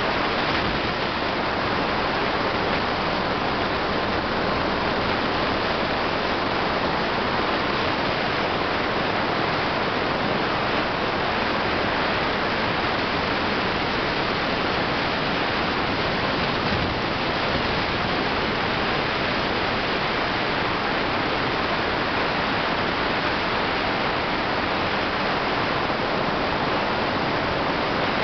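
Helicycle helicopter in a steady hover: a constant rush of turbine and rotor noise with a faint steady whine, unchanging throughout.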